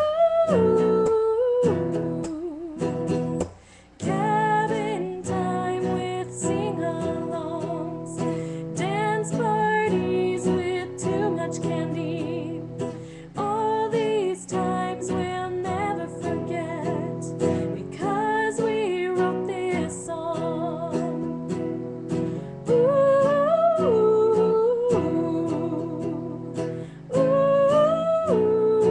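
A woman singing a song with strummed acoustic guitar accompaniment, the voice carrying a wavering melody over steady chords.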